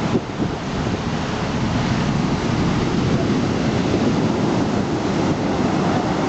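Black Sea waves surging in a steady wash of surf, with wind buffeting the microphone.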